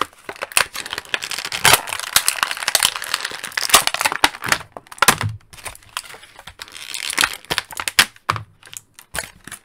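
Clear plastic packaging bag crinkling and crackling as it is handled and pulled open, a dense run of sharp clicks and rustles that pauses briefly about six seconds in and again near the end.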